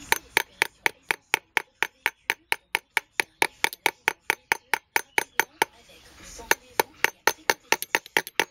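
Rapid, evenly spaced sharp clicks, about four a second, with a short break about six seconds in before they resume.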